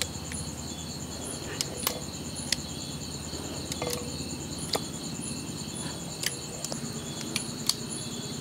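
Crickets chirping steadily, with a few scattered sharp clicks as rice batter is scooped by hand from a stone grinder into a steel pot.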